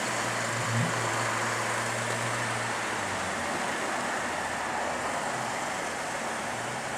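Holden VE Commodore SV6's 3.6-litre V6 idling steadily.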